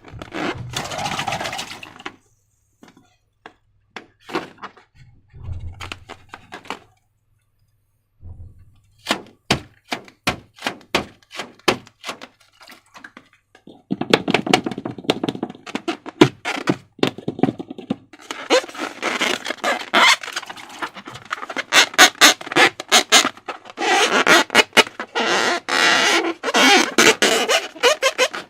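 Slime being squished and worked by hand, giving runs of quick clicking squelches. There is a near-silent stretch a few seconds in, then the runs come denser and louder from about halfway.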